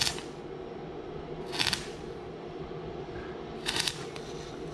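Stick (arc) welding on the thin steel pipe of a lawn-mower handle: the arc is struck in three short crackling bursts about two seconds apart, over a steady low hum. The pipe is thin enough that a moment's carelessness blows holes through it.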